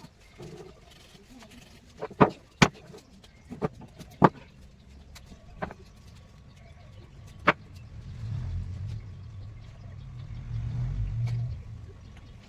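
Six sharp knocks at irregular intervals, typical of tool blows on wood, followed by a low rumble that swells twice and fades near the end.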